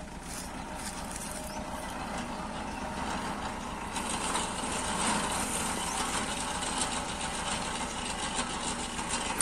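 A truck-mounted borewell rig's hoist drawing column pipe up out of a borewell: steady mechanical running with a fine, rapid clatter. It grows louder about four seconds in and ends with one sharp knock.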